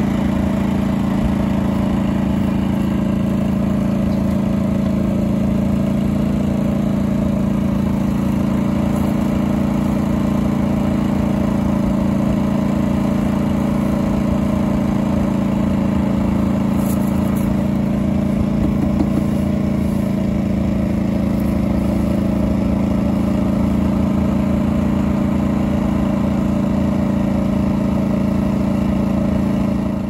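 Small portable inverter generator's engine running steadily with an even drone, under load from an electric mite-treatment vaporizer.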